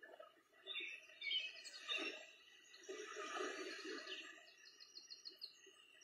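Several small birds chirping and singing, with a rapid trill about a second in and another near the end.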